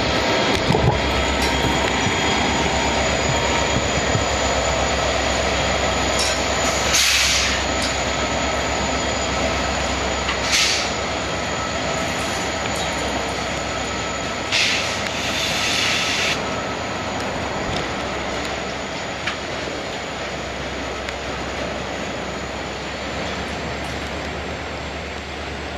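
Freight train of autorack cars rolling steadily past on curved track, with short bursts of wheel squeal about seven, ten and fifteen seconds in; a pair of CSX diesel locomotives runs in the consist.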